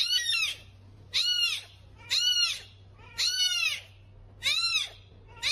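A very young kitten crying with repeated high-pitched mews, about one a second. Each mew rises and then falls in pitch.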